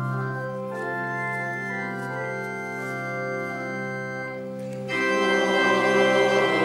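Organ playing held chords as the closing music after the benediction; the sound grows louder and fuller about five seconds in.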